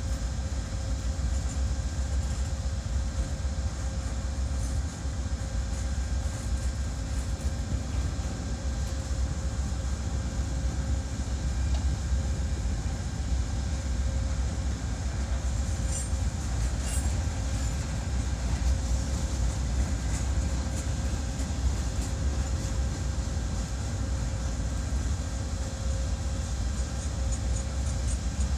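Cars of a loaded CSX crosstie freight train rolling steadily past on the near track, a continuous low rumble with a few faint clicks partway through. Under it runs a steady hum that fits the engine of the stationary Amtrak P42 locomotive on the next track.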